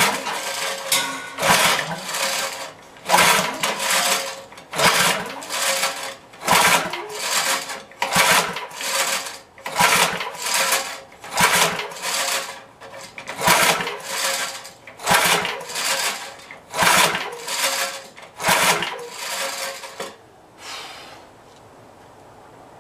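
Recoil pull-starter of a 5 hp Briggs & Stratton engine being pulled about a dozen times, one pull every second and a half or so, the engine cranking over with each pull but never firing. The pulls stop near the end.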